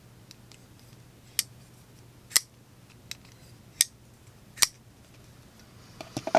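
Bastion Brat flipper knife being flicked open and shut: sharp metallic snaps as the blade swings out and locks. There are four loud clicks a second or so apart, fainter clicks between them, and a quick cluster of clicks near the end.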